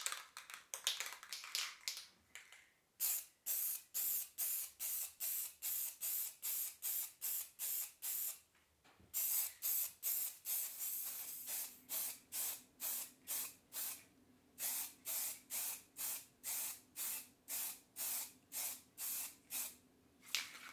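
Aerosol can of black acrylic spray paint spraying in short bursts, about two a second. A little under halfway through there is one longer, unbroken spray of about two seconds.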